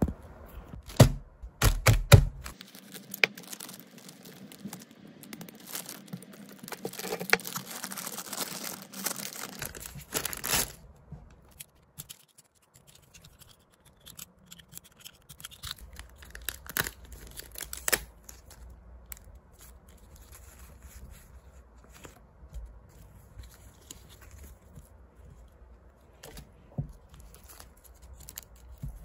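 Hands handling plastic photocard sleeves and toploaders: a few sharp clacks near the start, a long stretch of dense plastic rustling and crinkling, then quieter handling with occasional clicks as binder pages are turned.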